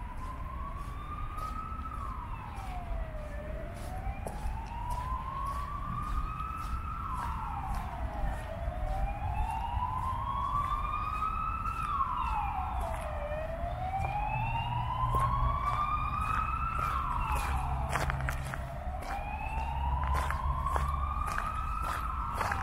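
Emergency vehicle siren in a slow wail: the tone rises over about three seconds and falls quickly, repeating about every five seconds. A low traffic rumble runs underneath and grows stronger in the second half.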